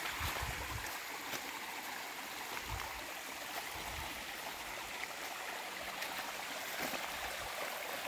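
Small forest stream running steadily, with a few soft low thumps of footsteps walking along the bank.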